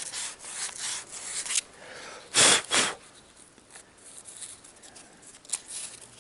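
Fine sandpaper rubbing in quick back-and-forth strokes on the copper commutator of a GAZelle heater fan motor, cleaning it. A short loud hiss comes about two and a half seconds in, followed by fainter, lighter scraping.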